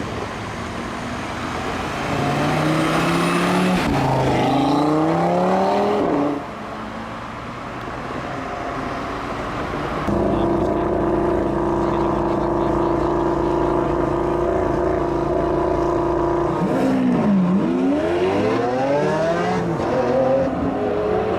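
Audi RS3 8V's turbocharged 2.5-litre five-cylinder accelerating hard, its pitch climbing in steps through quick upshifts. About halfway in it is held at steady high revs for some six seconds on launch control, then the revs dip as it launches and climb again through further gear changes.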